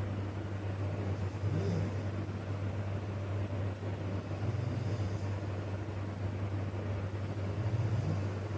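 A man snoring in his sleep, three snores about three seconds apart, over a steady low hum.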